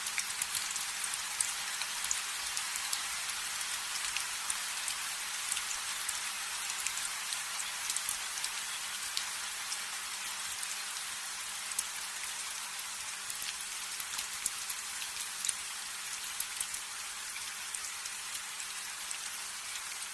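Steady rain falling: a dense, even hiss with many small drops ticking sharply.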